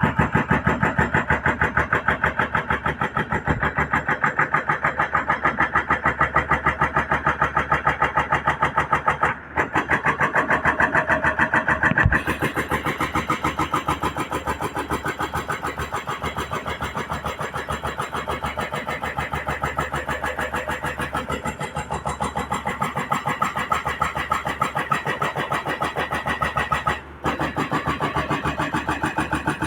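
Excavator's diesel engine running with a steady, rapid chugging pulse. The sound drops out twice for a split second.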